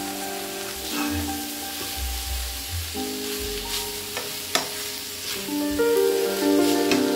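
Mince, potato and pea filling sizzling in a frying pan while a metal spoon stirs it, with a few sharp clicks of the spoon against the pan, over background music.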